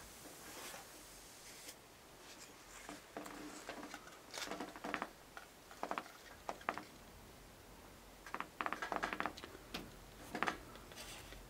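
Faint handling sounds of a katana being drawn from its scabbard and wiped with a cloth: a scatter of light clicks, scrapes and rubs in small clusters.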